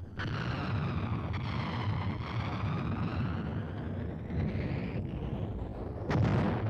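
Wind blowing, its whistle rising and falling over a low rumble, with a louder burst near the end.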